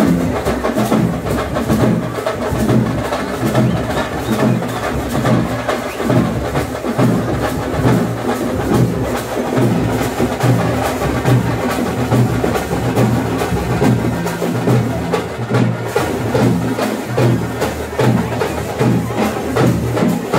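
Fast, steady festival drumming: a dense run of sharp drum strokes without a break.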